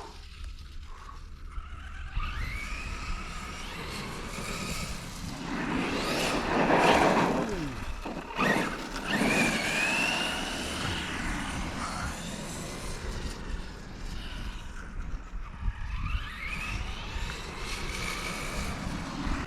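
Arrma Kraton 6S RC truck's brushless electric motor whining, rising and falling in pitch several times as the truck speeds up and slows down, over a low rumble.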